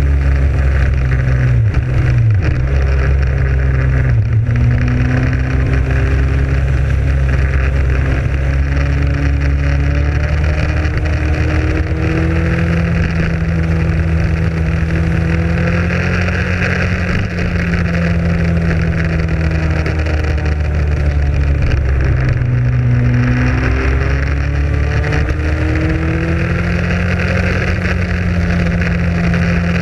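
Motorcycle engine running under way on the road, its note dropping and rising a few times as the speed changes, with wind rush over the microphone.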